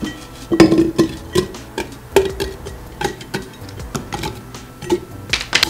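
Apple chunks dropped one after another into a jar. Each piece lands with a knock and a short ring, about two to three a second, with the loudest knocks near the end as the jar fills.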